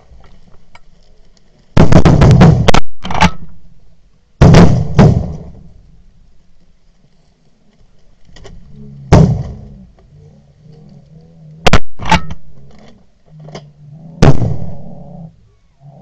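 A series of shotgun shots, about seven or eight loud blasts at irregular gaps, each dying away over up to a second. Two come in quick succession about two-thirds of the way through.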